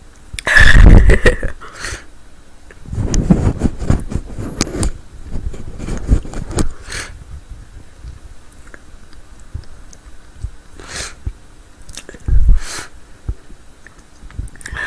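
A woman's loud sneeze about half a second in, then sniffling and noisy breathing through the nose, with short sharp sniffs, as the tickle builds again.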